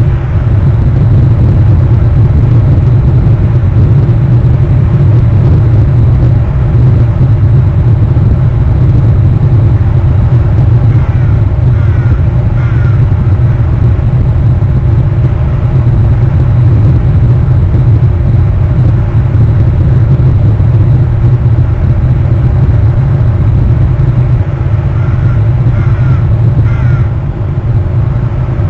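A steady low rumble, with two sets of about three short bird calls, one about eleven seconds in and another a few seconds before the end.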